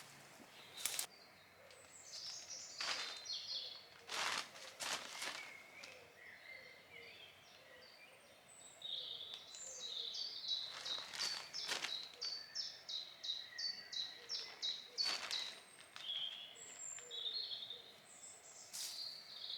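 Woodland birds singing, with a run of quick repeated notes through the middle. A few short knocks and rustles come from camping gear being handled and pegged out.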